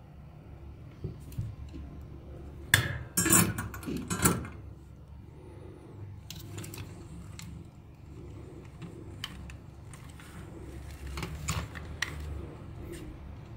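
Soldering iron set back into its metal stand with a metallic clatter, then scattered light clicks and taps of plastic toy parts and wires being handled.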